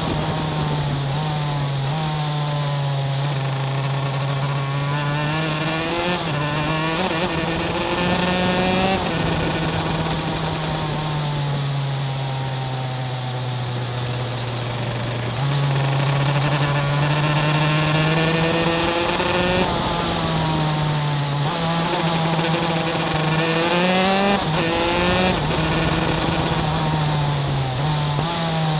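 Superkart's 250cc two-stroke engine at racing speed, its pitch climbing again and again as it accelerates and dropping back between climbs as it slows for corners.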